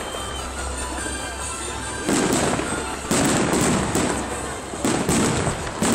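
New Year fireworks going off: clusters of loud bangs about two seconds in, around three seconds, near five seconds and again at the end, over a continuous background of distant bangs and crackle.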